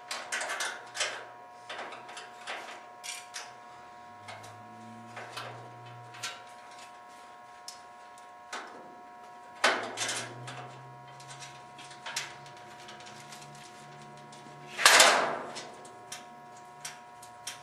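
Hand tools and metal car parts clinking and knocking during dismantling: scattered sharp clicks and knocks, with one louder clatter near the end, over a faint steady whine.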